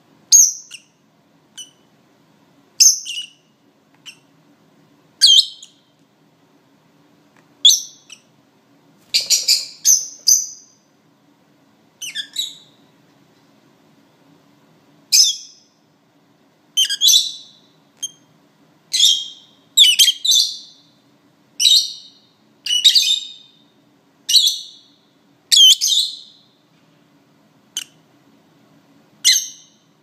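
Rosy-faced lovebird giving short, shrill chirping calls, one every two to three seconds at first and coming faster in the second half.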